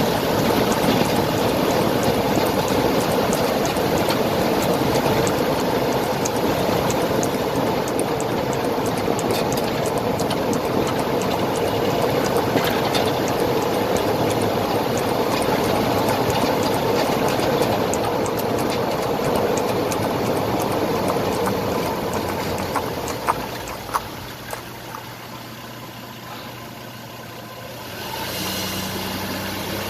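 Steady road and running noise from a 2001 Toyota 4Runner on the move, picked up near the front passenger wheel, where the owner is chasing a vibrating noise. The noise eases off after about 22 seconds, and a steady low hum comes in near the end.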